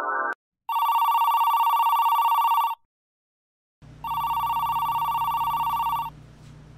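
Desk telephone ringing with an electronic trill: two rings of about two seconds each, an incoming call. A low steady hum runs under the second ring and after it.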